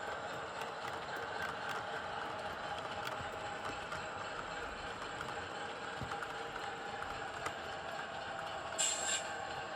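Cavalex Class 60 OO gauge model locomotive running, a steady whir of its motor and gearboxes with faint regular ticks. A brief hiss comes about nine seconds in.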